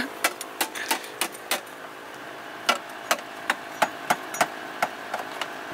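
Repeated hammering blows, a hatchet used as a hammer on a bent part of an off-road car, about three strikes a second in two runs with a short pause between them.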